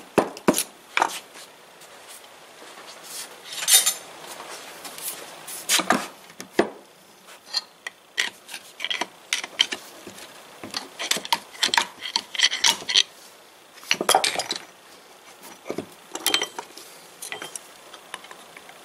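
Small steel parts and hand tools clinking and knocking together as they are handled, in irregular sharp taps, a few of them with a short metallic ring.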